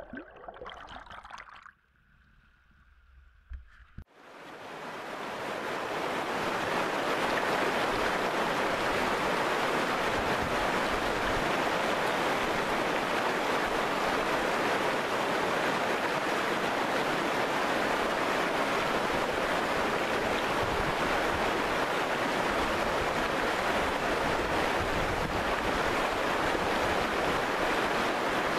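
Shallow, fast river rushing over stones and boulders: a steady, even rush of water that fades in about four seconds in and then holds.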